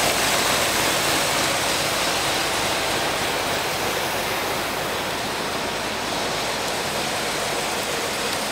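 1972 Chevrolet Corvette V8 idling steadily, a constant rumble under an even hiss.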